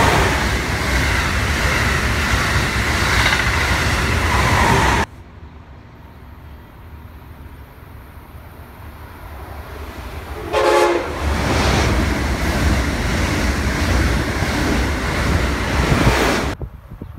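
An Amtrak Acela Express trainset passes through the station at speed, a loud steady rush that cuts off suddenly about five seconds in. After a few quieter seconds, a short train horn blast sounds. Then another Acela approaches and passes close by, the noise building up until it cuts off suddenly near the end.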